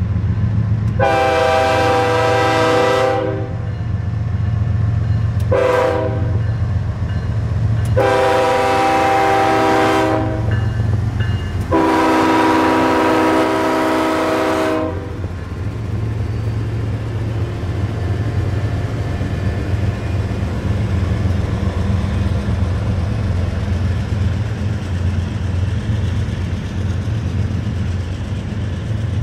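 BNSF GE ES44DC diesel locomotive's air horn sounding for a grade crossing: a long blast, a short one, then two long blasts, the last the longest. Under it and after it comes the steady rumble of the locomotives and the wheels of grain hopper cars rolling past on the rails.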